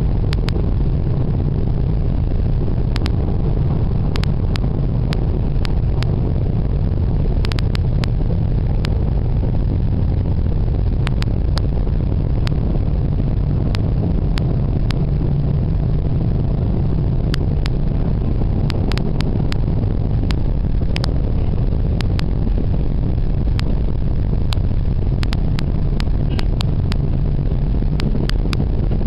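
Steady low road and engine noise of a car cruising, heard from inside the cabin, with scattered brief ticks.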